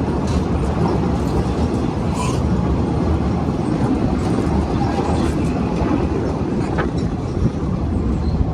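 Train running, a steady low rumble, with a short sharp knock about seven and a half seconds in.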